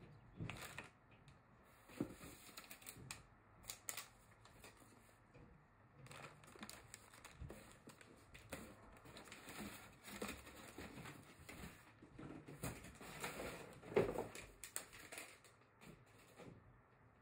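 Cardboard shipping box and packing material being handled: scattered rustling, scraping and light knocks, with one louder thump late on.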